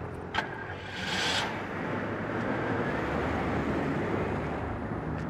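Car engine running amid street traffic: a steady rumble of engine and road noise, after a short click and a brief rush of noise about a second in.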